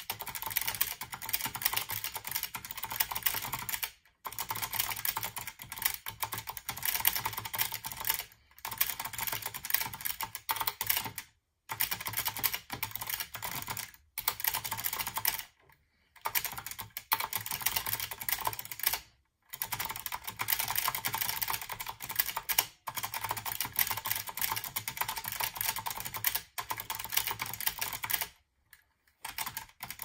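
Fast touch-typing on a BenQ 6312-TA keyboard with Acer clicky leaf-spring-over-membrane switches: a dense run of sharp, rattly key clicks, broken by short pauses every few seconds and a longer one near the end.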